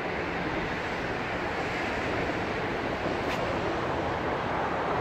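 Steady, even hiss of road traffic on the surrounding bridges and overpass, with a brief tick a little over three seconds in.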